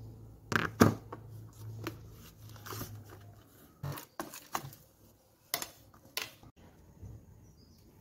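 Sharp plastic knocks and clicks as a plastic ice-cream tub is handled on a tiled counter and its lid pulled off, the loudest knock about a second in and a cluster more a few seconds later. A low steady hum runs under the first few seconds.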